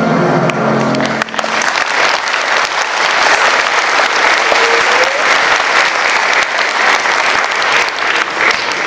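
A song's final held chord ends about a second in, and an audience breaks into steady applause.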